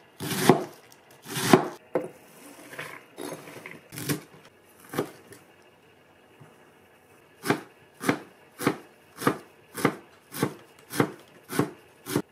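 A nakiri knife chopping vegetables on a plastic cutting board, each cut ending in a sharp knock of the blade on the board. Two loud cuts through napa cabbage come first, then a few lighter ones, a short pause, and an even run of about nine chops through dill, roughly two a second.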